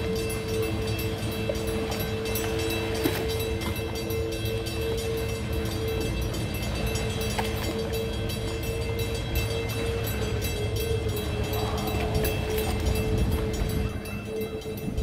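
Double-leaf bascule drawbridge's drive machinery running while the raised leaves move: a steady mechanical hum with a low rumble underneath.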